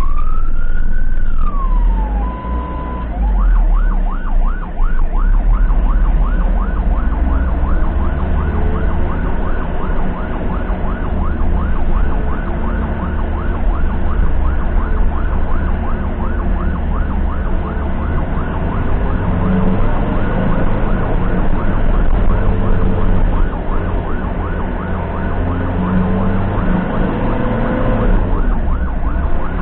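Ambulance's electronic siren: one slow sweep rising and falling, a brief steady tone, then about three seconds in it switches to a rapid yelp of fast repeating sweeps that runs on, over the low rumble of the vehicle's engine and road noise.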